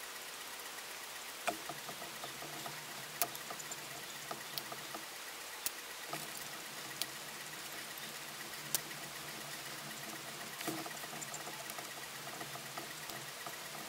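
Faint, scattered sharp ticks of steel pliers and piano wire as a hairspring coil is bent by hand, about seven or eight clicks spread out over a low steady hiss.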